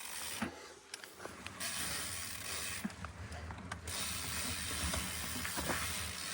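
Mountain bike being ridden, with a steady rush of tyre and wind noise and irregular sharp ticks from the bike, a strange ticking whose cause is unknown.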